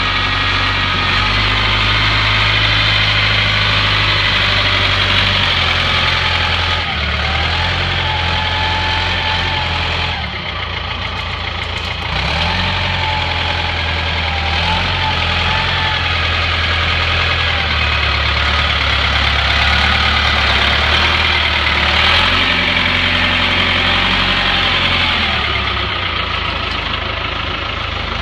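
Caterpillar motor grader's diesel engine running, its pitch stepping up and down several times, with a wavering whine at times.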